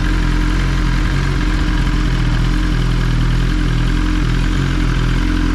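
2021 Kawasaki ZX-10RR's inline-four engine idling steadily through a full Graves titanium exhaust.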